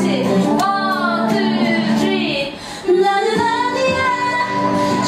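A woman singing a pop melody over musical accompaniment, with a brief drop in level about two and a half seconds in.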